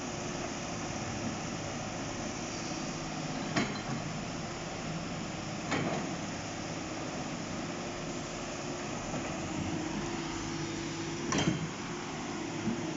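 Diesel engine of a JCB tracked excavator running steadily under work, with four sharp clanks at uneven intervals as the bucket works the riverbed.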